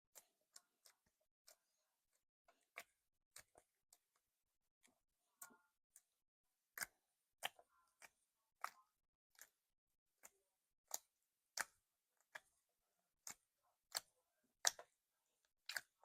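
Slime being worked by hand, giving off sharp clicks and pops at irregular intervals, about one or two a second, louder in the second half.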